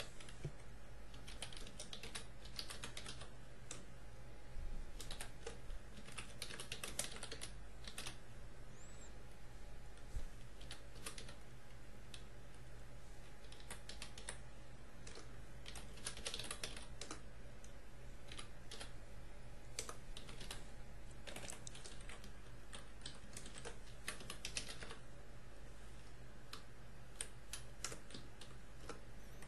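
Computer keyboard typing in quick bursts of keystrokes with short pauses between them, over a steady low hum.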